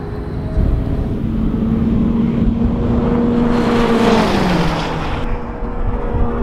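Two twin-turbo supercars, a McLaren 570S V8 and a Porsche 911 Turbo S flat-six, running flat out side by side in a drag race, their engine notes rising slowly as they accelerate. A little after four seconds they pass close by and the pitch drops sharply.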